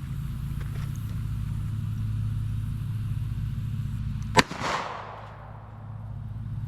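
A single .45 ACP shot from a Ruger handgun about four seconds in, followed by a short echo, over a steady low hum.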